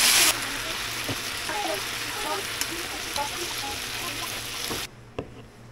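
Mandu frying in sweet-and-sour sauce in a nonstick pan: a steady sizzle, loudest for the first fraction of a second, while tongs turn the dumplings with small clicks. The sizzle cuts off abruptly about five seconds in.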